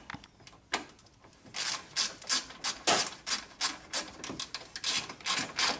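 Small hand wrench ratcheting on a bolt as it is loosened: rapid metallic clicking, several clicks a second, starting about a second and a half in after a single click.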